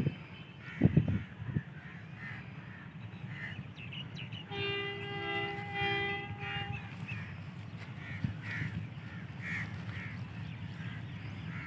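Horn of a Korean-built HBU-20 diesel-electric locomotive, sounded in two blasts of about a second each, back to back, about four and a half seconds in, as the train nears a level crossing. Birds chirp faintly throughout, and wind gusts on the microphone about a second in.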